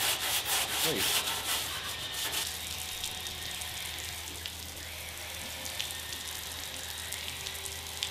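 A scrub pad rasping back and forth over a steel car chassis wet with KBS Aqua Clean degreaser, quick strokes for about two and a half seconds. Then a steady, quieter hiss of a garden hose rinsing the cleaner off the frame.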